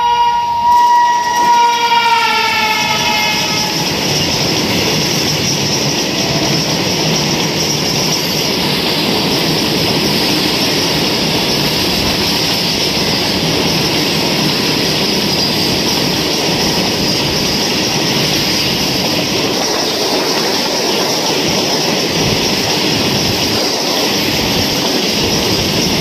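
Freight train passing: the electric locomotive's horn sounds for about three seconds at the start, dropping slightly in pitch, then the covered goods wagons roll by with a steady rumble and rattle of wheels on rail.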